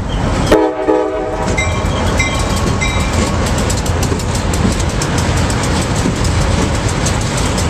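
A short blast of a diesel locomotive horn about half a second in, then the locomotive bell rings three times. Beneath it is the rumble of two EMD diesel road-switchers passing close by, with wheels clicking on the rails.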